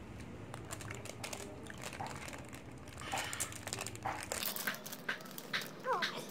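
Plastic chocolate wrapper crinkling as it is handled and torn open, in many short, sharp crackles that grow busier in the second half. A brief whine-like sound comes near the end.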